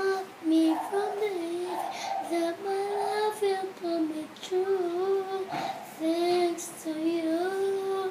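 A young girl singing a slow melody alone, without accompaniment, holding each note and pausing briefly between phrases.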